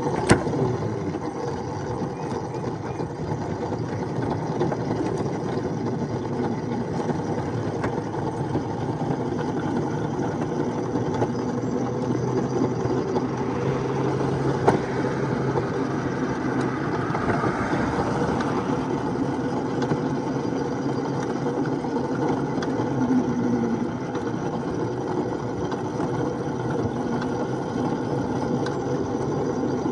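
Ride-on miniature railway train running along the track: a steady engine drone, with a sharp click just after the start and another about halfway through.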